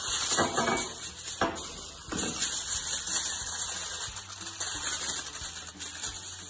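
Aluminium kitchen foil crinkling and rustling as a sheet is pulled over a roasting tray and pressed down, with a few sharper crackles in the first couple of seconds.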